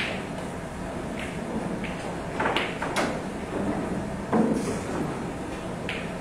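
Pool hall ambience: a handful of short, sharp clacks and knocks, several close together about halfway through, over a steady low background din of the room.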